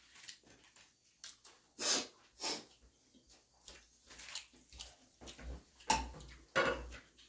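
A string of short crunching and rustling noises from eating crisp fried onion pakodas taken from a paper-lined bowl, with a few louder crunches about two seconds in and again near the end.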